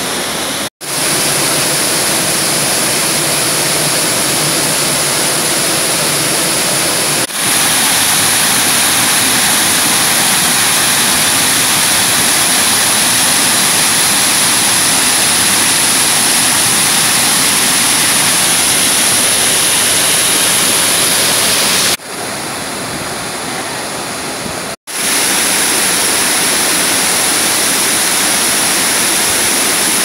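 Waterfall crashing onto rocks and into a pool: a steady rush of falling water. It is broken by a few brief gaps where clips are joined, and runs a little quieter for a few seconds near the end.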